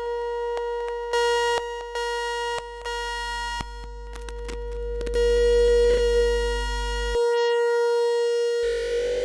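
Electronic tone from a К176ЛА7 (CD4011-type CMOS NAND gate) oscillator circuit, run through software effects: a steady pitched buzz with overtones, broken by short clicks and crackles. Near the end it turns into a wavering, noisier tone.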